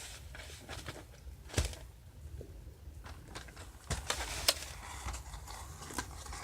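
Scattered clicks and knocks with some rustling, as of small objects and wrapping being handled.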